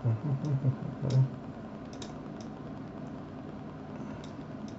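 Computer keyboard being tapped: a few soft low thumps in the first second or so, then scattered light key clicks, over a steady low hum.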